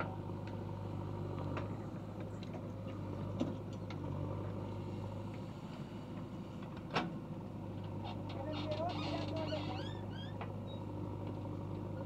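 JCB backhoe loader's diesel engine running steadily while the rear bucket digs and lifts wet mud, with a few sharp knocks, the loudest about seven seconds in. A few short rising chirps come around nine seconds in.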